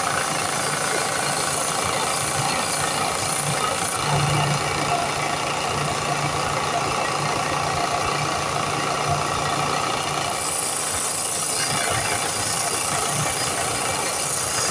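Power sander motor running steadily while sanding the wooden knife handle, a constant hum with an even grinding hiss.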